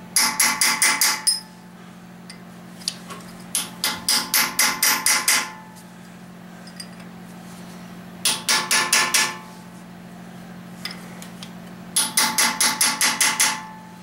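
Hammer blows on a chisel staking freshly installed plugs in the iron block of a 1999 5.7 engine, raising burrs so the plugs cannot move. The blows come in four quick bursts of six to eight metallic taps each, with a ringing tone, over a steady low hum.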